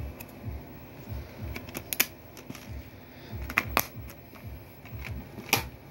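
Sharp plastic clicks and taps of a DVD disc and its plastic case being handled, as the disc goes back in and the case is shut. Under them runs a patter of soft low thumps. The clearest clicks come about two seconds in, around three and a half to four seconds, and just before the end.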